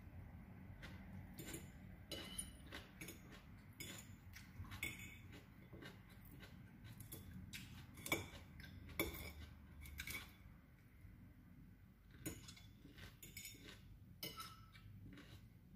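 Metal fork clinking and scraping against a ceramic bowl as salad is picked up, in scattered sharp clicks, with two louder clinks about eight and nine seconds in.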